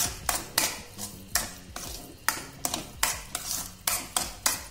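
Metal spoon scraping and stirring cooked barnyard millet (samak) and sugar in a stainless steel kadai, in quick regular strokes about three a second.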